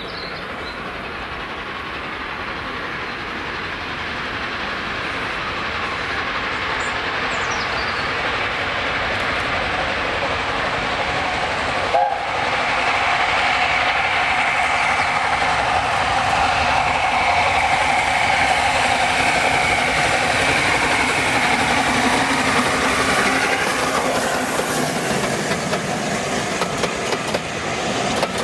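LNER A4 steam locomotive Sir Nigel Gresley approaching with a train, its running noise growing steadily louder. About halfway in, a long steady whistle-like tone sounds for several seconds. Near the end the wheels of the passing coaches clatter over the rail joints.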